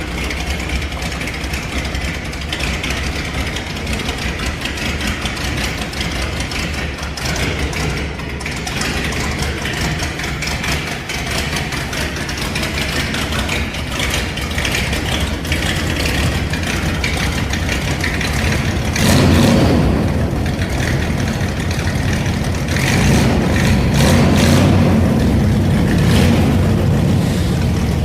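Dodge Dart V8 with a straight-through exhaust, rumbling at idle. It is revved briefly about two-thirds of the way through, then held at higher revs for a few seconds near the end.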